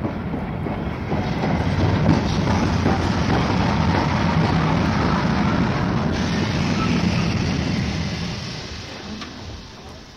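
Train pulling into a station: a steady loud rumble and rush of noise that fades away over the last two seconds.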